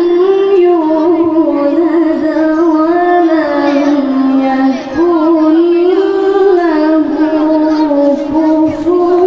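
A boy's voice chanting the Quran in melodic tilawah style, amplified through a microphone, with long held notes and ornamented turns. It breaks briefly for breath about halfway through.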